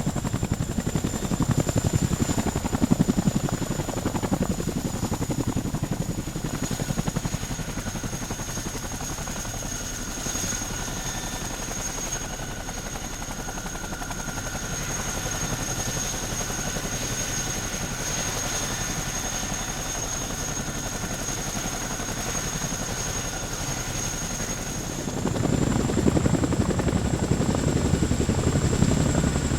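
CH-47 Chinook tandem-rotor helicopter running: fast, even rotor chop under a high steady turbine whine. It drops somewhat in level after about six seconds and gets suddenly louder again near the end.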